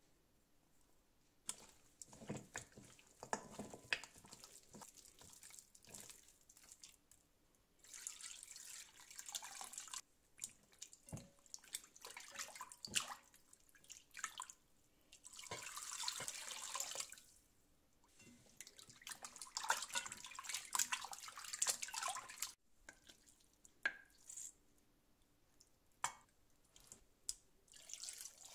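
Raw pork ribs being worked by hand in a glass bowl, first mixed with flour and then rubbed and swished in water to wash them: small knocks and clicks of meat against the bowl, with three longer bursts of splashing water.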